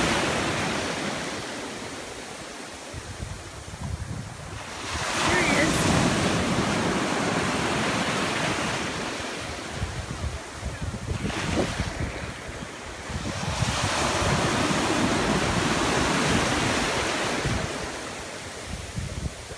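Ocean surf breaking and washing up the beach, swelling and fading three times, with wind buffeting the microphone.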